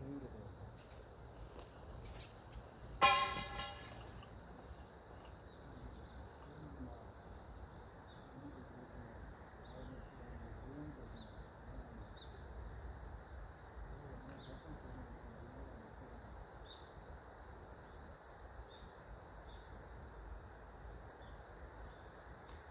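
A single short horn toot about three seconds in, the loudest sound, over steady high-pitched insect chirping.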